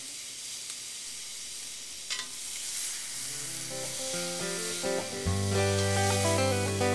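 Steaks sizzling on a hot grill, a steady hiss with a single click about two seconds in. Guitar music fades in about three seconds in and grows louder, with a bass line joining near the end.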